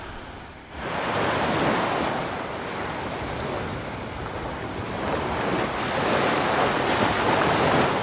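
Sea waves washing onto a beach: a steady rush that sets in sharply under a second in, then swells and eases.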